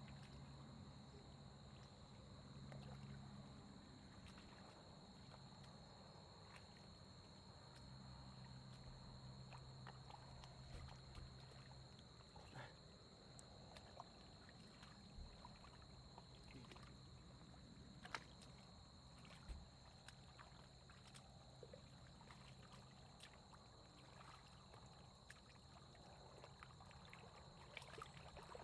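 Faint, scattered splashing and squelching of hands digging through wet mud and shallow paddy water.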